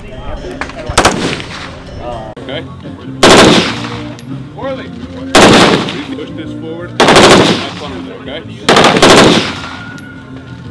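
Full-automatic gunfire: five short bursts, each about half a second of rapid shots, about two seconds apart.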